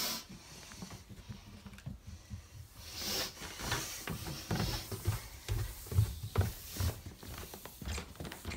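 Irregular soft thumps and patter of footsteps on a hardwood floor, mixed with scuffs, denser from about halfway through.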